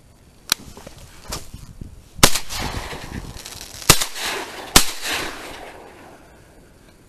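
Shotgun fired three times, the shots about a second and a half and then under a second apart, each with a fading echo. Before them come a sharp snap and rustling as the hunter sits up out of the layout blind.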